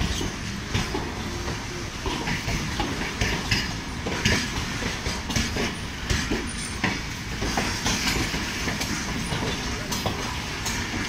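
Passenger train running at speed, heard from an open coach window: a steady rumble of wheels on the rails with irregular clickety-clack over rail joints.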